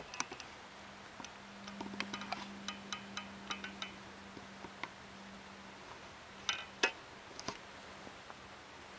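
Quiet outdoor ambience: faint, scattered clicks and ticks, some short and high-pitched, over a faint steady low hum, with a small cluster of louder clicks about six and a half seconds in.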